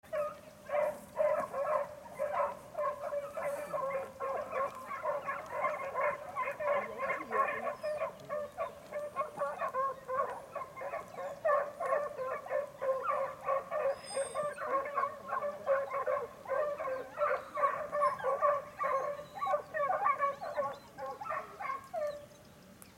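Several hunting dogs barking and baying without pause in quick, overlapping yelps as they run a hare's trail. The barking thins out and stops about a second before the end.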